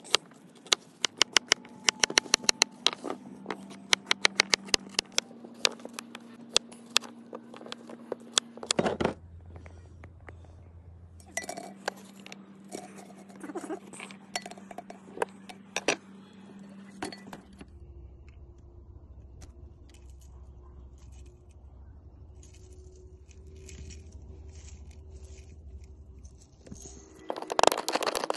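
Kitchen knife chopping onion on a wooden cutting board: a fast run of sharp knocks for about nine seconds, then another run of strikes after a short pause. It tails off into sparse light clinks and ticks, and a loud scraping rush comes near the end.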